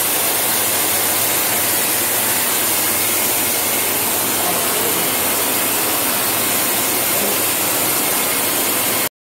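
Electric fogger machine's blower motor running, a loud, steady rush of air that cuts off suddenly near the end.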